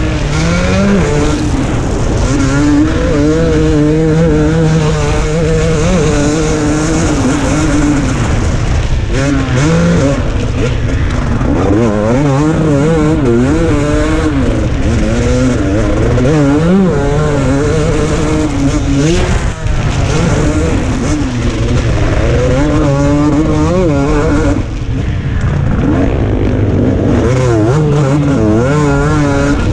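KTM 250 SX single-cylinder two-stroke motocross engine at full throttle, its pitch rising and falling over and over as it revs out, shifts and comes off the throttle for corners and jumps. The sound drops out briefly twice in the second half.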